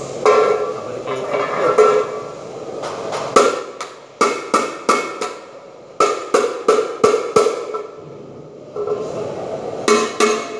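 A hand tool striking metal in sharp, ringing blows: two quick runs of about six strikes each, about four a second, then two more near the end.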